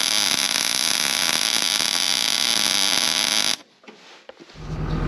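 Electric welding arc running in a steady buzzing hiss as a cracked excavator bucket is welded back together, cutting off suddenly about three and a half seconds in.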